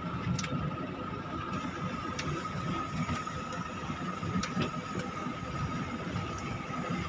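Excavator engine running steadily: a low rumble with a thin, steady high tone over it and a few faint clicks.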